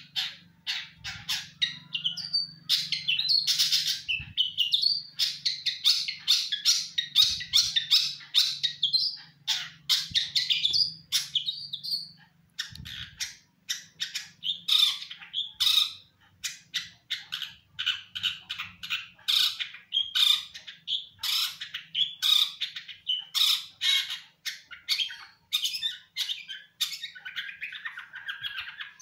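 A songbird chattering in a fast, nearly unbroken run of short, harsh notes and chirps, kept up throughout with only brief gaps. A faint low hum sits underneath.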